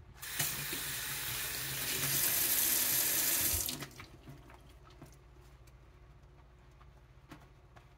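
Water running from a single-lever faucet into a sink. It starts just after the beginning, gets louder about two seconds in, and is shut off abruptly after about three and a half seconds.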